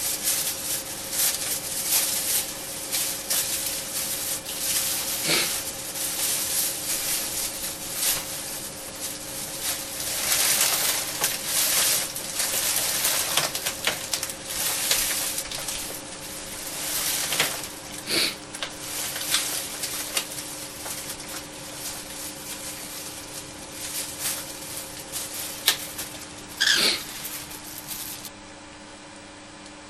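Dense, irregular crackling and clicking, as of a cockatiel nibbling and rustling at something, with a short high call near the end. A steady low hum runs underneath.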